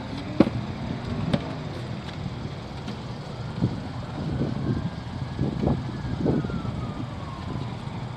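Knocks and rattling clanks of a rigid wheelchair frame with its wheels off, being lifted and handled into a car through the driver's door. The clanks are sharp single knocks at first, then a busier cluster of rattles in the middle. A steady low rumble of traffic runs underneath.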